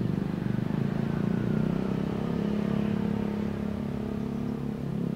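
A motor engine running steadily with a low, even hum that firms up about a second and a half in.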